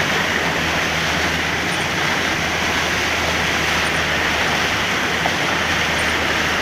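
Steady rush of heavy rain and floodwater heard from inside a vehicle, with the low, even hum of its engine underneath.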